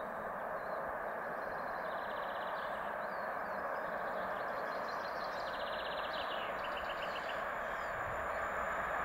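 An InterCity train hauled by an EP09 electric locomotive approaching at speed: a steady rushing noise that slowly grows louder, with a deeper rumble coming in near the end. Small birds trill several times over it, each in a quick run of repeated high notes.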